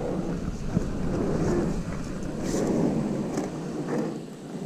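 Wind buffeting the microphone as a gusty, rumbling roar, easing about three and a half seconds in, with a few light knocks.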